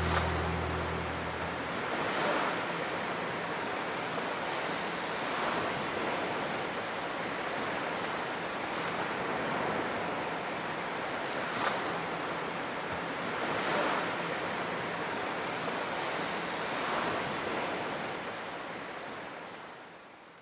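Surf on a beach: waves washing in and breaking, swelling every few seconds, then fading out near the end. The last notes of a music track die away at the start.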